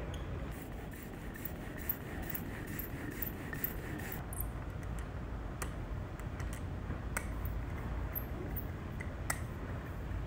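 Small hand ink brayer rolled over inked type in a press bed: a soft, steady scraping rub, with a few faint clicks.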